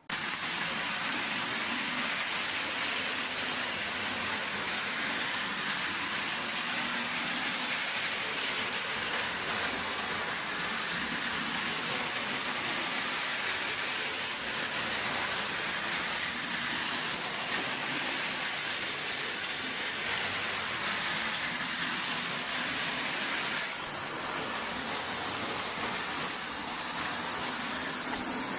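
Marx O27 Commodore Vanderbilt toy electric locomotive running steadily on tin track, pulling its six tin cars: an even whirring rumble that holds at one level, with a slight dip about two-thirds of the way through.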